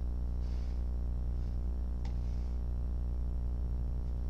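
Steady low electrical hum with a stack of even overtones, unbroken and unchanging.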